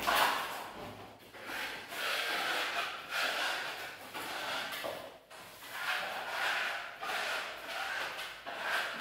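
Steel trowel scraping over a wall as a burnt-cement effect coating is worked on, in repeated swishing strokes about one a second.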